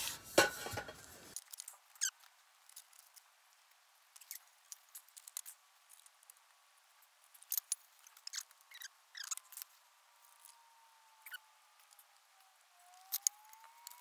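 Sparse, faint clicks and light clinks of metal tubing and connector fittings being handled and fitted together.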